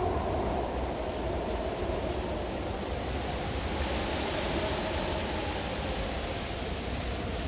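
Howling mountain wind: a steady rush and low rumble with a faint moaning tone that wavers in pitch, and a hissing gust swelling about halfway through.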